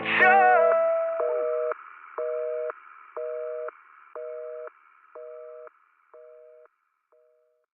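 North American telephone busy signal: a steady two-note tone beeping on and off about once a second, seven beeps that grow fainter and fade out. The last of the song's music dies away under the first beep.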